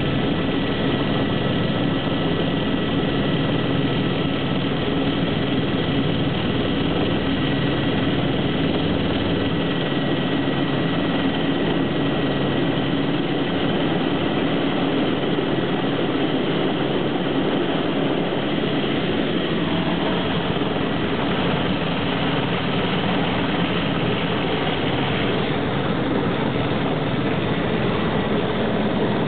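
Single-engine AS350 Squirrel helicopter's turboshaft engine and rotor running steadily through approach and landing, heard from inside the cabin. There is a steady high whine over the rotor noise, and one tone slides down about two-thirds of the way through.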